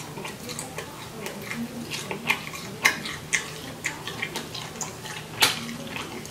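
Eating sounds from sucking and biting the meat out of a crab leg: wet mouth smacks, sucks and clicks coming irregularly, with sharper clicks about three seconds in and again about five and a half seconds in.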